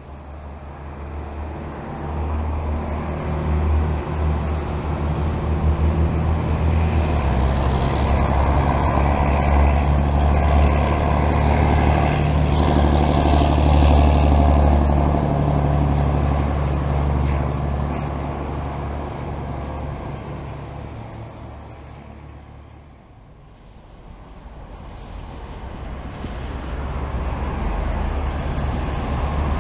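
Diesel city bus engine drone building up as the bus approaches and passes close by, loudest about halfway, then fading away. Near the end a second bus approaches and the engine sound rises again.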